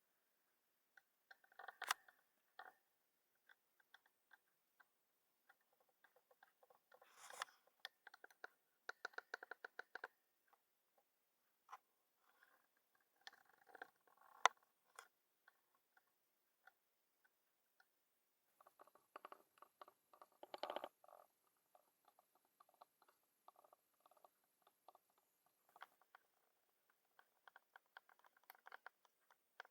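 Faint scattered clicks, taps and light scrapes of small metal and wood parts being handled, with several short runs of rapid ticking, as a hand saw is put back together.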